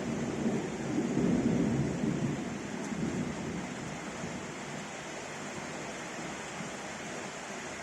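Low rolling thunder dying away over the first three seconds or so, leaving a steady hiss of rain.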